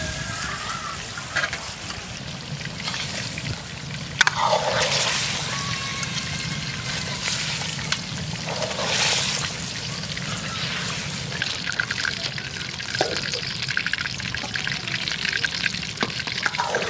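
Water being poured and trickling into a cooking pot, with splashes, loudest twice: about four seconds in and about nine seconds in.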